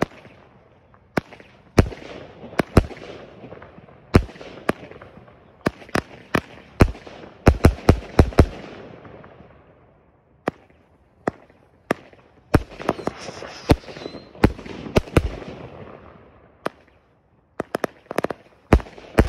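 A 69-shot fan-pattern firework cake firing: an irregular string of sharp bangs as its shells break overhead, each followed by a fading hiss. The shots come in quick clusters with short lulls, thickest near the end.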